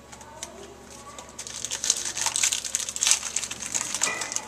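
Trading cards being handled: a dense run of rustling, crackling clicks from about a second and a half in until near the end.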